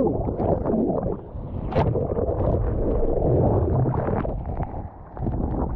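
Sea water sloshing and splashing close to the microphone, with strong wind buffeting it.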